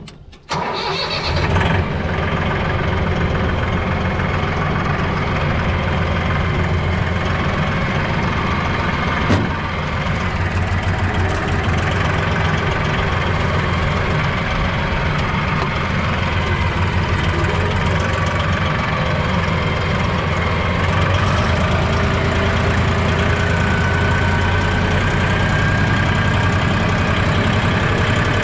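A vehicle engine starts up and then runs steadily.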